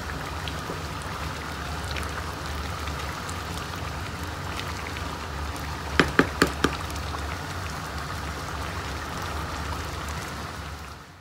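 Pot of rice, chicken and broth simmering, a steady bubbling hiss with scattered small pops over a low hum. About six seconds in, a wooden spoon knocks four times in quick succession on the metal pot, each knock ringing briefly.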